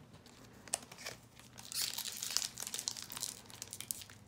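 Foil wrapper of a Pokémon TCG booster pack crinkling and crackling as it is handled and worked at to open it, sparse at first and busier from a little under halfway in.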